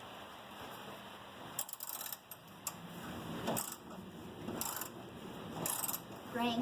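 Socket ratchet wrench clicking in short bursts, about four strokes roughly a second apart, as a shock-mount bolt on a 1965 Ford Mustang is turned.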